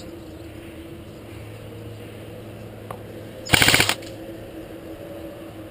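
Airsoft rifle firing a short full-auto burst of about half a second, rapid clattering shots, about three and a half seconds in.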